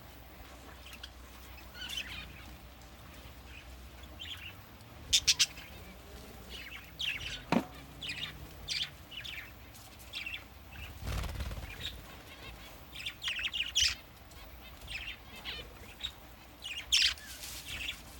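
Birds chirping and calling in short, scattered bursts, with a quick triple stroke about five seconds in and a falling sweep a couple of seconds later.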